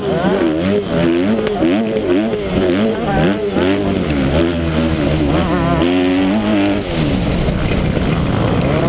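Honda 250 motocross bike engine revving hard under racing load. Its pitch climbs and drops over and over with throttle and gear changes, then falls lower and steadier near the end.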